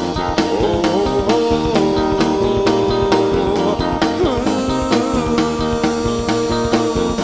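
Indie rock band playing live: electric guitar over a drum kit keeping a steady beat, with a held melody line that bends in pitch partway through.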